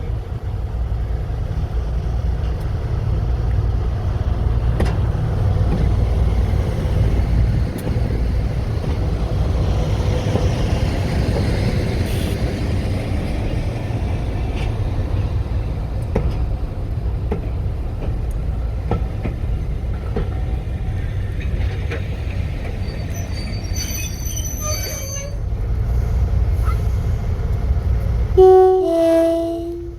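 Diesel locomotive running with a steady low engine rumble. A brief high-pitched squeal comes about three quarters of the way through, and the train's two-tone horn sounds loudly near the end.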